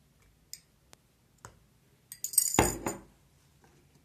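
Metal spoon clinking against a glass while spoonfuls of liquid are scooped out and added to the slime mixture: a few light taps, then a louder cluster of clinks a little over two seconds in.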